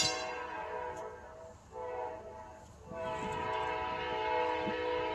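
Amtrak locomotive's multi-note air horn sounding for a grade crossing: faint at first, then a short blast about two seconds in and a long blast from about three seconds in.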